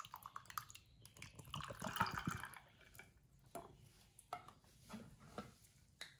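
Yakult fermented milk drink poured from its small plastic bottle into a glass of ice cubes, trickling and splashing over the ice for about two and a half seconds. A few light clicks and taps follow as the plastic bottles are handled.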